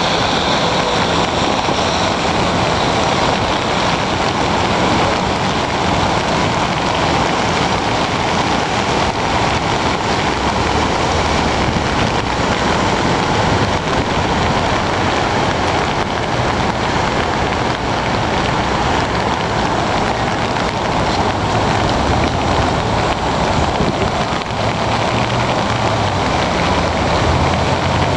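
The flooded Puyallup River rushing: a loud, steady roar of fast-moving water.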